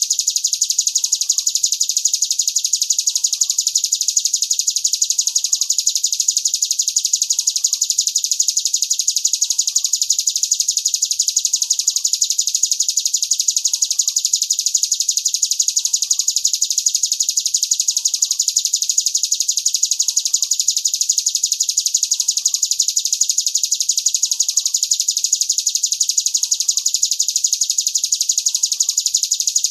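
Caged songbirds singing a continuous, very rapid high-pitched trill without pause, with a fainter lower chirp dropping in pitch a little more than once a second.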